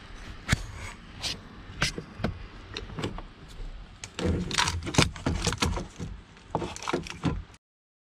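Clicks, knocks and rattling of plastic and metal parts being handled under a pickup's steering column while the ignition switch is worked loose, with a denser stretch of scraping and rattling about four seconds in. The sound cuts off abruptly near the end.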